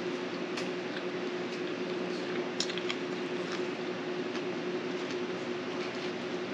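A person eating a rice meal: chewing and a few soft clicks over a steady hiss and a steady low hum.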